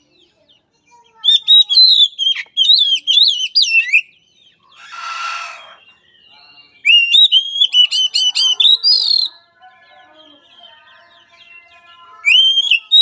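Oriental magpie-robin singing three loud runs of quick, varied whistled notes, with a short harsh rasp between the first two.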